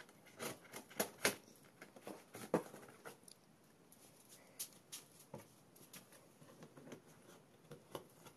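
Scissors slitting packing tape on a cardboard box: scattered scrapes, clicks and rustles of blade and cardboard, strongest in the first three seconds and fainter after.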